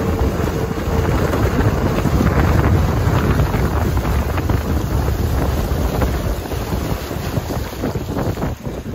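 Heavy wind buffeting the microphone of a small boat out on choppy open water, a loud rumbling rush with the wash of the water underneath.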